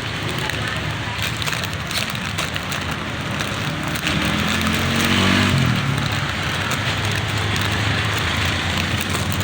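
Steady crackling, hissing noise with a low hum underneath.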